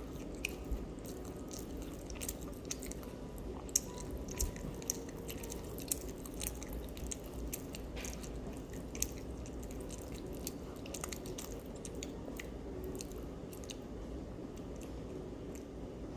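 Close-up chewing and biting of a crispy fried egg roll: many short, crisp crunches of the wrapper that thin out after about ten seconds, over a steady low hum.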